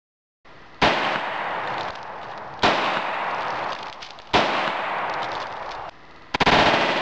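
Taurus 650 snub-nose .357 Magnum revolver fired downward into water with CorBon 125-grain DPX loads: four sharp shots about one and a half to two seconds apart, each followed by a long wash of noise, the last with a second report right after it.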